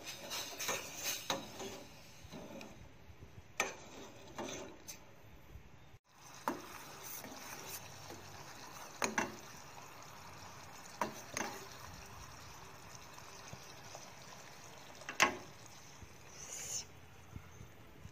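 A metal spoon clinks and scrapes against a small metal saucepan as palm sugar and white sugar are stirred with a little water. There is a quick run of clinks at first. After a short break the sugar syrup bubbles with a steady hiss, and the spoon knocks against the pan now and then, sharpest near the end.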